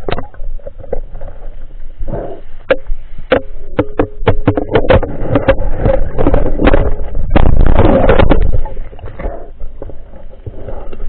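Underwater handling noise from a speargun-mounted camera: a run of sharp clicks and knocks as the gloved hand hauls in the spear's shooting line, with a louder rush of noise about two-thirds of the way through.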